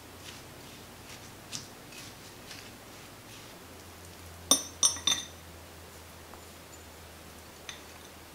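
Soft scraping ticks of a silicone spatula stirring buttered Oreo crumbs in a glass bowl, then three sharp ringing clinks in quick succession about halfway through as the glass bowl knocks against a stainless steel cake ring while the crumbs are tipped in, and one lighter click near the end.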